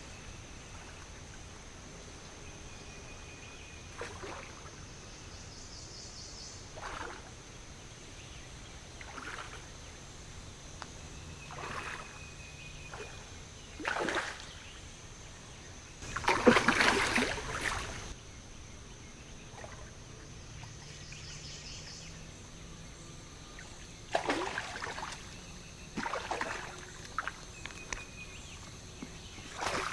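Creek-bank ambience: a steady high-pitched insect drone with a few short bird calls, broken by scattered short noises, the loudest a rough burst of about two seconds past the middle.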